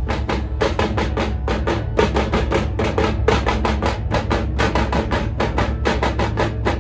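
Dhumal band drumming a fast, even beat of about five or six strokes a second, over a steady low bass.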